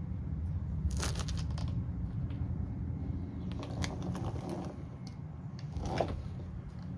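Hand work on bolts, washers and a plastic lip: scattered clicks and light rattles in small clusters, the sharpest about six seconds in, over a steady low hum.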